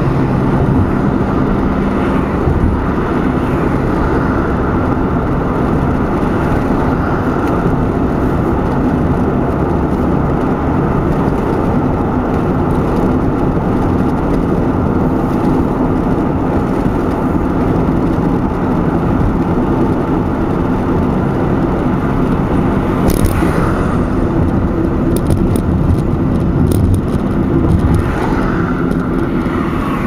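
Steady road and engine noise inside the cabin of a car driving on a highway. A few brief light clicks come near the end.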